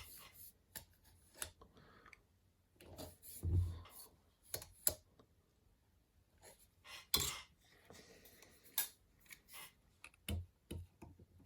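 Scattered metal clicks and light knocks from a collet chuck being handled, with a few dull thumps as it is moved or set down.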